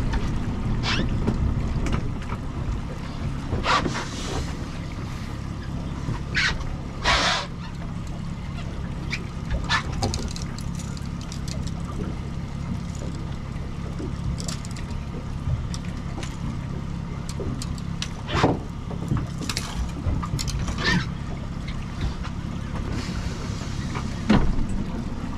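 Honda outboard motor running steadily at trolling speed, a low even drone with water and hull noise. A few sharp clicks and knocks cut in now and then.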